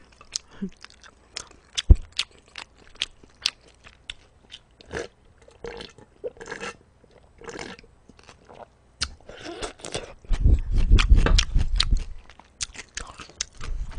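Close-miked eating: chewing with many short mouth clicks and smacks, and sips of broth from a metal bowl of cold noodles about halfway through, with a louder stretch of mouth noise about ten seconds in.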